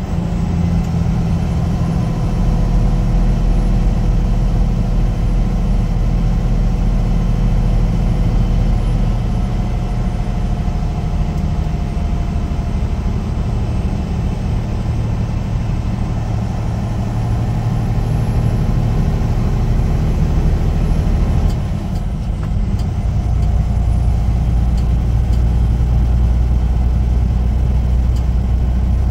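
Semi truck's diesel engine and road noise heard from inside the cab while driving: a steady low drone with a slowly shifting engine note. About three-quarters of the way through it dips briefly, then comes back heavier.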